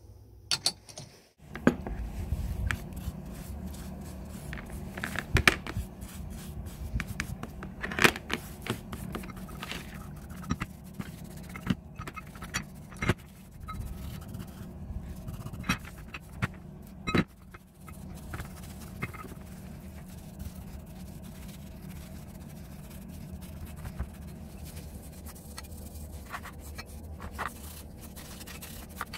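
A bristle brush scrapes and dabs liquid tannin rust remover onto rusty iron bone-grinder parts in a plastic tray, with scattered sharp clicks and knocks from the brush and parts. The clicks thin out about two-thirds of the way through, leaving a steadier brushing sound.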